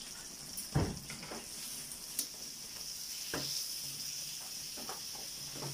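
Slices of pork belly sizzling steadily on a hot tabletop grill pan, with a few short knocks about a second in, at about two seconds and past three seconds.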